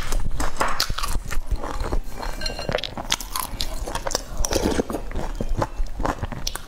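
Close-miked eating sounds: chewing a mouthful of pan-fried bun, then soup sipped and slurped from a spoon at a ceramic bowl, with many small wet clicks of the mouth.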